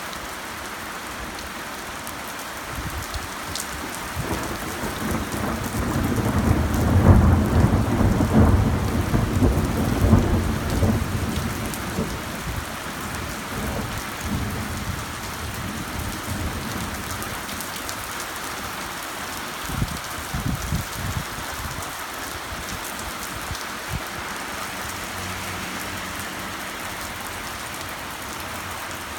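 Heavy rain falling steadily, with a long low roll of thunder that swells a few seconds in, is loudest for several seconds, then dies away. A few brief low rumbles follow later.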